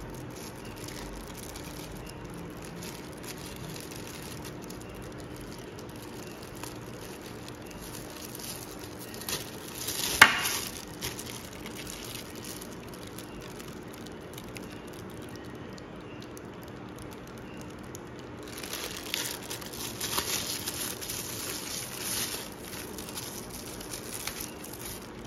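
Thin plastic bag crinkling and rustling as it is handled and squeezed, with one sharp click about ten seconds in and a longer stretch of rustling near the end.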